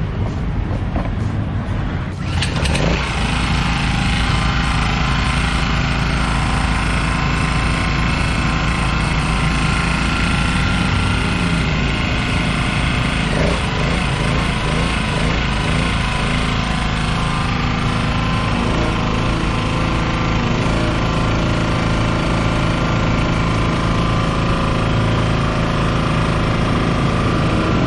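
Firman FPG 1500 portable four-stroke petrol generator running steadily under an electrical load. The sound gets fuller and louder about two seconds in, then holds steady.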